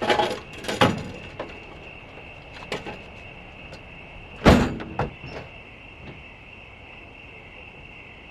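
Knocks and clatter of things being handled, with the loudest, a heavy thud, about four and a half seconds in, over a steady high-pitched hum.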